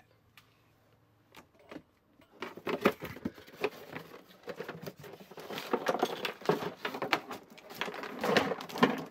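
Cardboard toy box being opened and tipped out: rustling and scraping of the flaps, with knocks and clatter as the plastic pieces and printed card insert slide out. It starts after about two seconds of near quiet.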